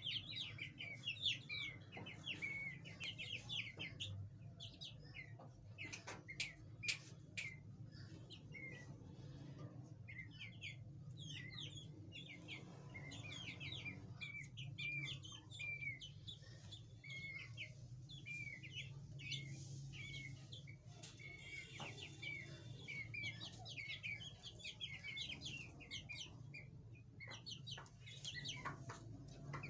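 Chukar partridges and their chicks calling: a steady stream of rapid, short, high peeps that drop in pitch, over a faint low hum.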